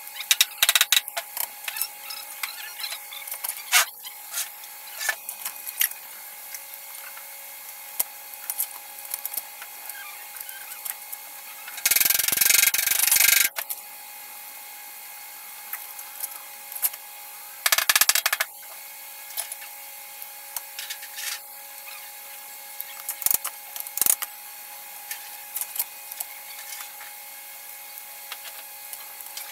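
Workshop hand work: scattered clicks, taps and knocks of tools being handled, with two short bursts of hissing, rubbing noise about 12 and 18 seconds in, the first about a second and a half long. A faint steady hum runs underneath.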